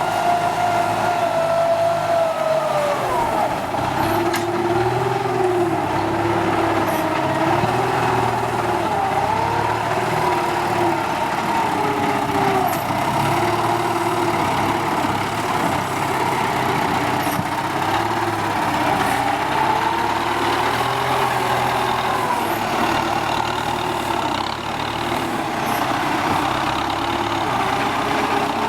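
Kubota M9540 tractor's four-cylinder diesel engine working under ploughing load. Its pitch drops about three seconds in, then rises and falls repeatedly as the load changes.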